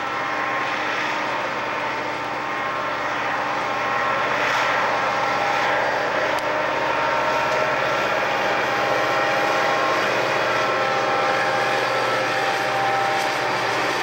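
Santa Fe diesel-electric freight locomotives running under power as they pass: a steady engine drone with several held tones, getting louder about four seconds in.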